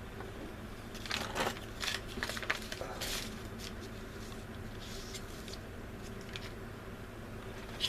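Brief, irregular rustling and scraping as small plastic model parts and tools are handled on a workbench, clustered in the first few seconds and again around the middle, over a steady low hum.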